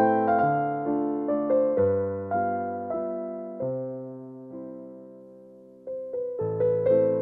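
Background piano music: struck notes and chords that decay. It dies away almost to silence around five seconds in and picks up again about a second later.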